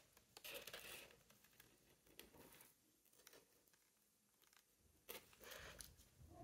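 Near silence broken by a few faint rustles and crinkles of parchment paper and tweezers handled over a styrofoam pinning board, the last group about five seconds in.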